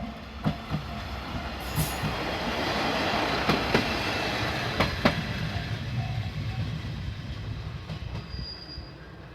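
Diesel railcar passing over a level crossing: the rumble of the wheels and running gear builds to a peak about three seconds in and then fades, with a handful of sharp wheel clacks over the rail joints as it goes by.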